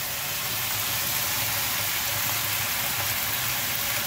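Beef and vegetables sizzling steadily in a frying pan over the heat, with a faint low hum underneath.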